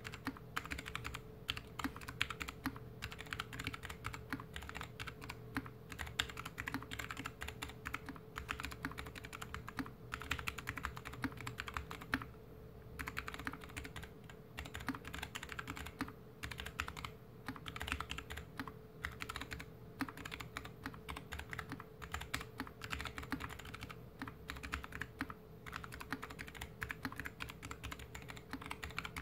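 Slow typing on a GK61X mechanical keyboard with Kailh BOX Mute Jade switches, a stainless steel plate, a plastic case and DSA keycaps, set on a desk mat. A steady run of keystrokes with a short pause about twelve seconds in.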